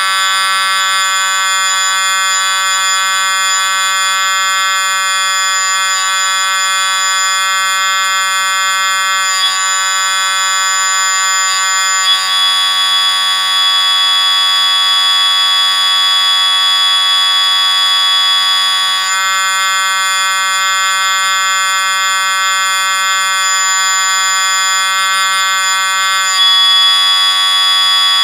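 A loud, steady electronic drone of many layered tones, like an alarm. It holds without a break, and its tone changes abruptly several times.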